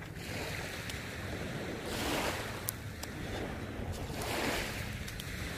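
Small waves washing up on a sandy beach, swelling and fading every two to three seconds, with wind buffeting the microphone. A single faint click a little before the middle.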